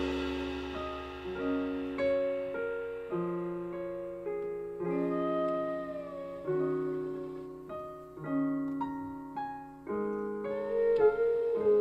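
A slow instrumental passage of plucked or struck chords, changing about once a second, each note dying away. A note bends in pitch about five seconds in.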